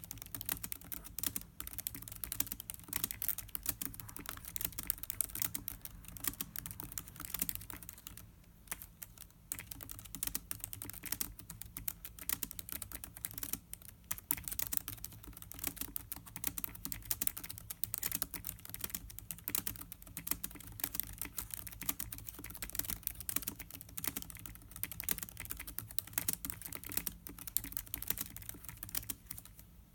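Continuous fast typing on the keyboard of a 2016 Lenovo ThinkPad X1 Carbon laptop: dense, quick key clicks, with a couple of brief pauses along the way.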